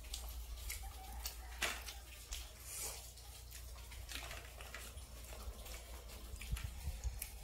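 Quiet eating sounds: soft scattered clicks and rustles of hands tearing flatbread and touching steel plates, over a steady low hum.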